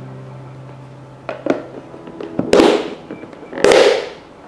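Lid of a Lock & Lock plastic food container being fitted and pressed down: three plastic knocks and clacks about a second apart, the last two the loudest. Soft background music plays underneath.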